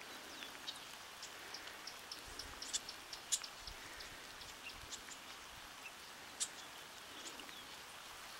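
Light rain falling, heard faintly as a steady soft hiss with scattered small drop ticks at irregular moments.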